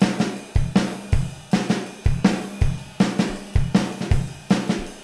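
Acoustic drum kit recording played back in a steady groove: kick and snare hits over hi-hat and cymbals, repeating evenly. This is the plain drum bus, without the parallel-compressed signal mixed in.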